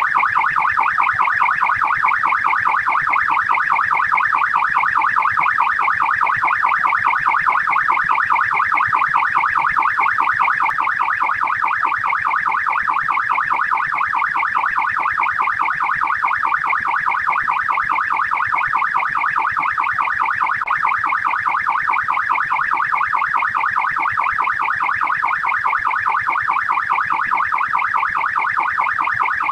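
Australian police siren in its fast yelp mode: an electronic wail sweeping rapidly up and down in pitch, many times a second, without a break.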